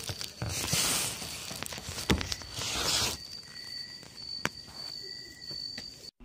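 Rustling and shuffling with a couple of short hissy bursts, about a second in and again near the middle, and a few sharp clicks. A faint steady high whine runs underneath and stops near the end.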